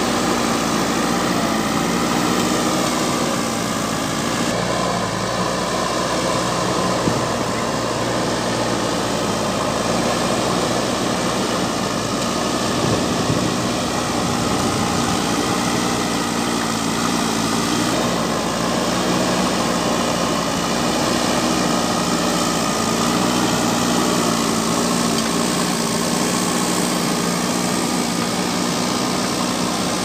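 JCB 3DX backhoe loader's diesel engine running steadily while its front loader bucket pushes and levels heaped soil, its pitch wavering a little as the load changes.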